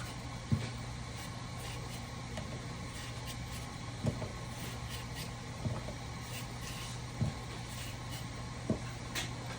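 Potatoes being peeled by hand in a kitchen: faint scraping strokes with a soft knock about every second and a half, over a steady low hum.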